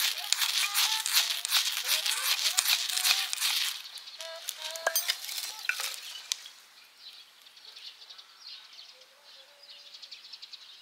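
Freshly lit wood shavings crackling and hissing loudly as the flame takes hold. The crackle dies down to a fainter, sparser crackling after about six seconds.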